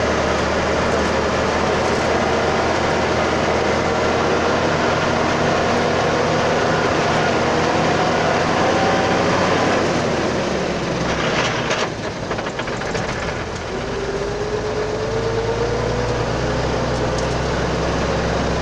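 Vehicle engine running, heard from inside the cab along with road and body noise. Its note falls away about eleven seconds in, then climbs again.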